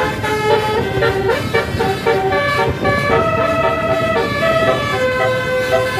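Basuri telolet musical bus horn playing a tune, quick short notes at first, then longer held notes stepping up and down in pitch from about two seconds in, over the bus's running noise.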